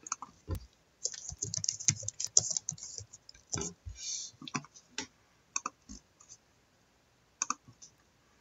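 Trading cards being handled: irregular light clicks and short rustles, dense for the first five seconds or so, then only a few.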